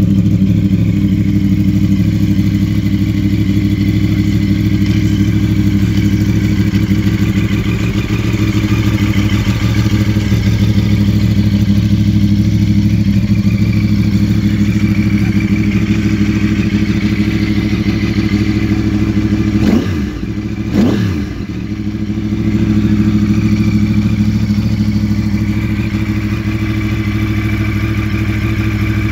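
A 2010 Yamaha R1's crossplane inline-four idling steadily through an Akrapovic titanium exhaust, with its uneven big-bang beat. About two-thirds of the way through the throttle is blipped twice in quick succession before it settles back to idle.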